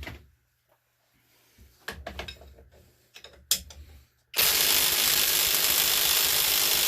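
A few clicks and knocks as the tool and socket are handled, then a cheap knockoff Milwaukee M18-style cordless impact wrench hammers continuously on a 1/2-inch bolt for about three seconds, loud, with the bolt held at the tool's maximum torque.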